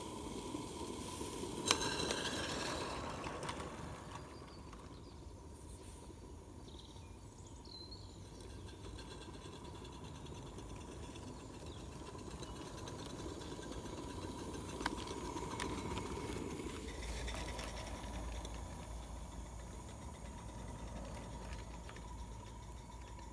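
Scratch-built 3.5-inch gauge live steam locomotive hissing steam as it runs on its first steam-up, its cylinders still cold. A sharp click about two seconds in and another about fifteen seconds in.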